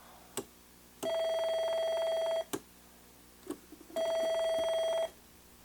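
Electronic test instrument beeping while a transistor is checked in circuit: two steady, mid-pitched beeps, each well over a second long, with a few short clicks between them.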